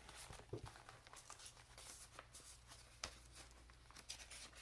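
Near silence with faint paper rustling and a few light clicks as the pages and paper tucks of a handmade journal are handled.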